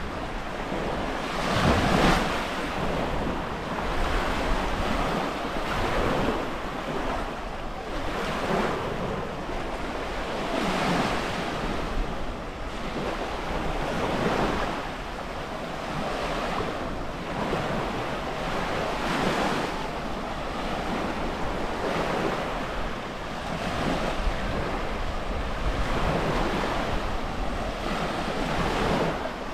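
Sea waves washing onto the shore in repeated swells every two or three seconds, with wind buffeting the microphone.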